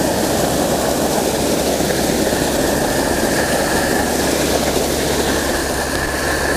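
Water rushing steadily from a fire hydrant through a 2.5-inch Hose Monster flow diffuser, spraying onto the pavement while the hydrant is being closed slowly to avoid water hammer. A faint high whistle joins about two seconds in.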